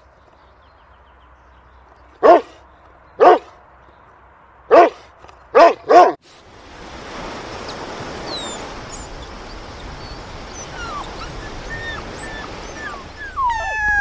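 A dog barks five times, short single barks about a second apart. Then comes a steady rushing noise of sea surf with faint high squeaks, and near the end newborn kittens start mewing.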